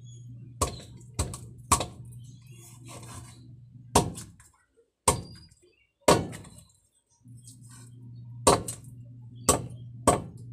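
Large kitchen knife chopping through a grouper on a chopping board: about nine sharp thunks at uneven intervals, some close together and some a second or more apart. A steady low hum runs underneath and stops for a few seconds in the middle.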